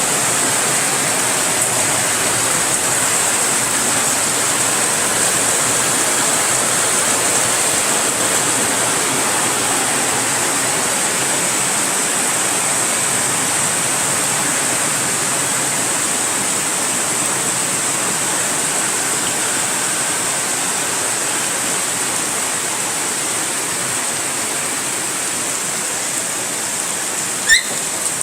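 Heavy rain pouring down in a steady, unbroken downpour. There is a single short click near the end.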